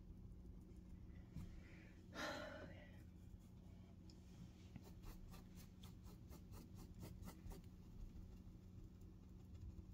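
Faint sounds of a paintbrush working acrylic paint on canvas and palette: a short brushing swish about two seconds in, then a run of about a dozen light ticks, roughly five a second, over a low steady hum.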